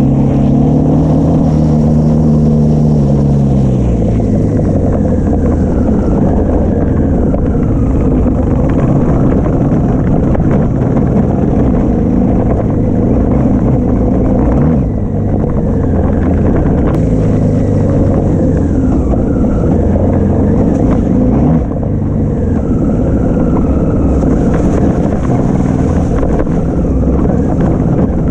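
Motorcycle engine running under load on a dirt trail, its pitch rising and falling with the throttle and dropping as it eases off a few seconds in, with wind rushing over the microphone.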